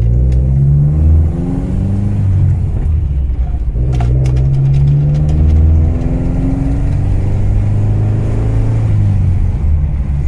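1985 Mitsubishi Sigma's Astron 2000 four-cylinder engine accelerating on the road, its pitch climbing in each gear and dropping back at each gear change, about four times over. A sharp click about four seconds in.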